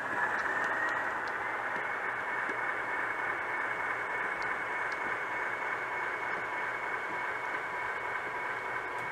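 Model railroad diesel switcher running with a string of freight cars: a steady electric motor whine that rises slightly in pitch over the first second or so and then holds, over the hiss of the small wheels rolling on the rails.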